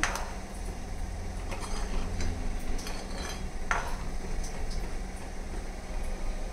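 A metal spoon stirring a boiling sambar-powder gravy in a nonstick kadai, the liquid sloshing as the spoon scrapes the pan. The spoon knocks on the pan at the start and again a little past halfway.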